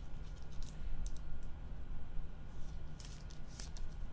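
Light scattered clicks and taps of gloved hands handling trading cards and their packaging on a tabletop, with a small cluster of clicks about three seconds in, over a low steady hum.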